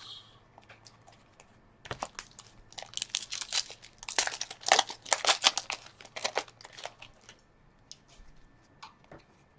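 Foil wrapper of a hockey card pack crinkling and tearing as the pack is ripped open, a run of rustles from about two to seven seconds in, followed by a few light ticks of cards being handled.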